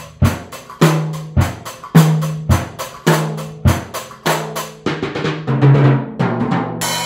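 Child-size drum kit played in a basic rock groove: steady hi-hat eighth notes, bass drum and snare alternating on the beats. About five seconds in it breaks into a quicker fill on the drums and ends on a cymbal crash that rings on.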